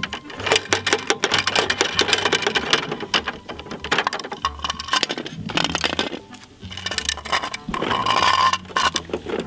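Rapid plastic clicking and rattling from a toy recycling truck's bin-lifter gear wheel being turned by hand, over background music with a steady bass line.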